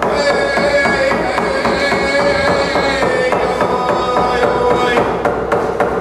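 A man singing a Native American song in long held notes while beating a hide hand drum in a steady rhythm.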